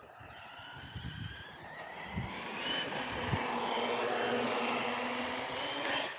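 Traxxas Sledge RC monster truck's brushless electric motor whining as it drives, its pitch gliding up and down with the throttle, and the whine and rush getting louder through the middle. There are two dull thumps, about two and three seconds in.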